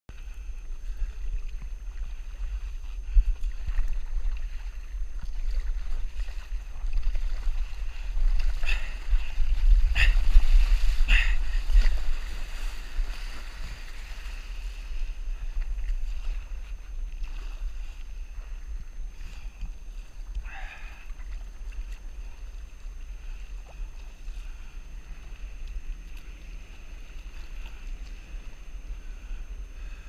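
Seawater sloshing and splashing against the nose of a stand-up paddleboard as it rides through small waves, over a steady low wind rumble on the microphone. A louder run of splashes and knocks comes about eight to twelve seconds in.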